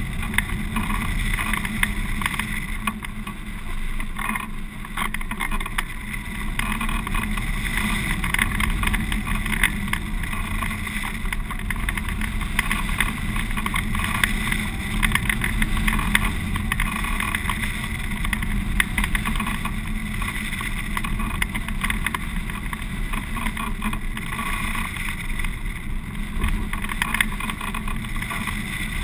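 Steady rush of airflow buffeting the microphone of a camera mounted on a hang glider in flight, with fast fluttering and crackle and a brief dip in strength a few seconds in.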